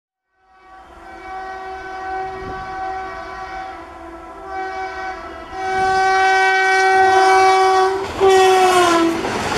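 Indian Railways three-phase electric locomotive sounding a long, single-pitched horn that grows louder as it approaches, with a short break partway. Near the end the horn's pitch drops as the locomotive passes, and the rushing noise of the passing train takes over.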